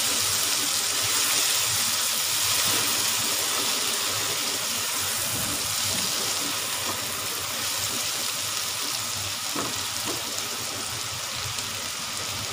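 Chopped tomatoes and browned onions sizzling in hot oil in a non-stick pan as they are fried down for a masala, stirred with a spatula that scrapes against the pan. A steady hiss that eases slightly, with a couple of light knocks about ten seconds in.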